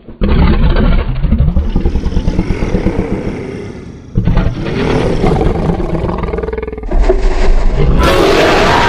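Edited monster sound effects for a giant reptilian kaiju: deep, rough rumbling growls in separate spliced pieces that change abruptly about four and seven seconds in. A louder, higher-pitched roar begins about eight seconds in.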